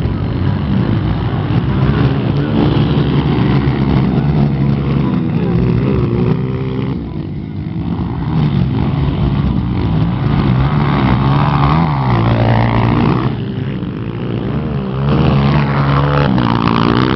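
Motocross bike engines revving, pitch climbing and dropping again and again as riders accelerate and shift, with more than one engine heard at once; loudest near the end.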